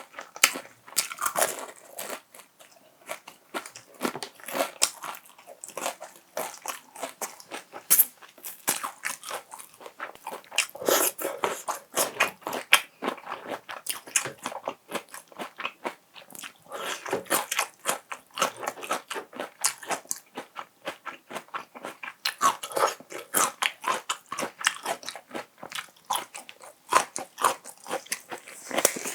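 Close-miked crunching and chewing of crispy fried chicken: many sharp, irregular crunchy bites and chews, one after another throughout.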